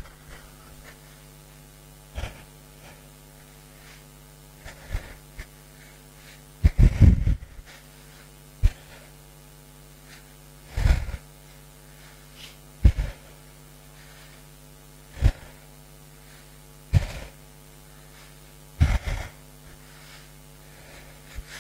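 A man breathing hard into his microphone as he pedals an exercise bike, a loud puff of breath about every two seconds, the biggest about seven seconds in, over a steady electrical hum.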